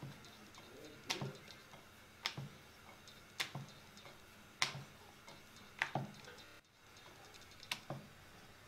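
Wooden rolling pin rolling out puri dough on a round wooden board, knocking sharply against the board about once a second, six times in all.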